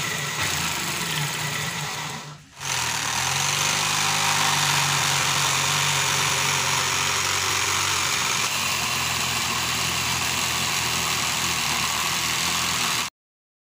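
Electric drill running a homemade drill-powered jigsaw, a steady motor hum with a mechanical buzz. It stops briefly about two and a half seconds in, spins back up and runs steadily, then cuts off suddenly near the end.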